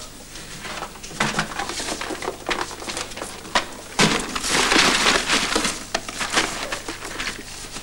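Rummaging through a cardboard box of small plugs: rustling and scraping with scattered knocks and clatters, busiest about halfway through.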